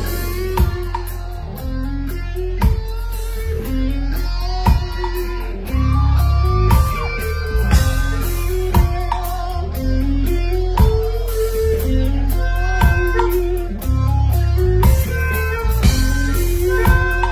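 Live rock band playing an instrumental passage: held melodic note lines over a heavy bass low end and steady drum hits, with no vocals.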